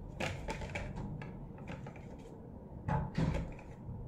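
A few short knocks and clatters of plastic toys handled in a plastic bucket, the loudest pair about three seconds in.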